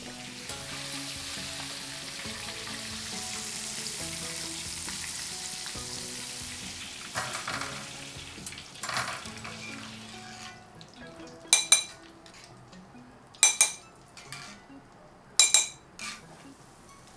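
Oil sizzling steadily as chicken deep-fries, under soft background music. In the second half the sizzle drops away and several sharp metallic clinks ring out in close pairs.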